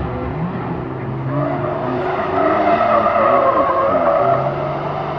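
Audi A6 wagon driven hard through an autocross course, its engine revving up and down between the cones. The tyres squeal loudly from about one and a half seconds in until near the end.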